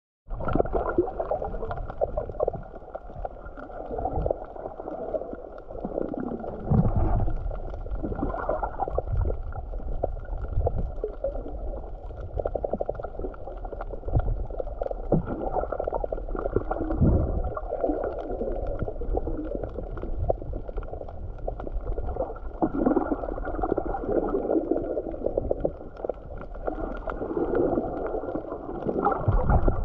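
Muffled underwater sound heard through a submerged camera: a steady water rush and gurgle with nothing high, and dull low thumps every few seconds.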